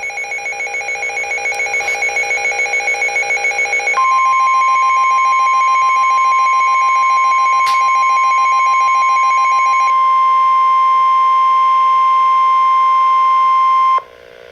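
NOAA Weather Radio alert: a rapidly pulsing electronic beeping from the weather radio receiver, then about 4 s in the steady single-pitched 1050 Hz Warning Alarm Tone comes on and holds for about ten seconds before cutting off sharply near the end; the pulsing beeps stop about 10 s in. The alarm tone marks a warning-level alert, here a severe thunderstorm warning.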